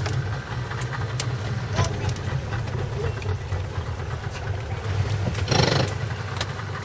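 A passenger motorboat's engine running steadily under way, a continuous low drone. A short rush of noise breaks in about five and a half seconds in.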